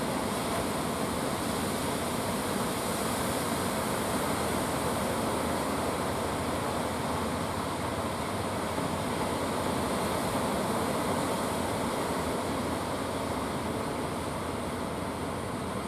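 Steady, even roar of sea surf breaking on the beach, with a low rumble underneath.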